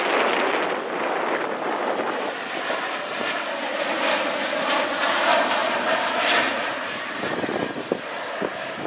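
Twin-turbofan Embraer E-Jet regional jet passing low on final approach, engines at approach power: a steady rush with a thin high whine through the middle. Wind buffets the microphone near the end.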